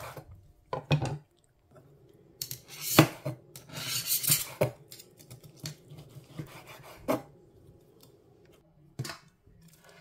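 Knife slicing grilled pork on a wooden cutting board, the blade knocking on the board several times, the loudest knock about three seconds in, followed by about a second of scraping.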